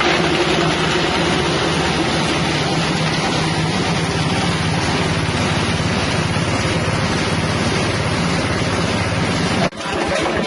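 Engine-driven spice grinding machine with a 6.5 hp engine running steadily, a loud even mechanical din. It cuts out sharply for a moment near the end, then carries on.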